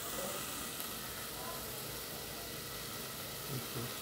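Chopped bacon sizzling steadily as it fries in a pan on a gas stove.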